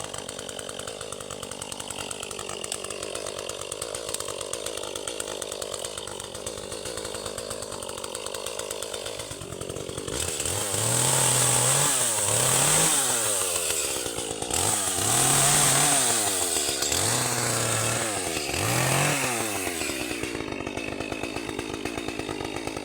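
Two-stroke chainsaw idling, then revved up to full speed five times from about ten seconds in, each time rising, holding and dropping back, as when bucking storm-fallen wood. It settles back to idle near the end.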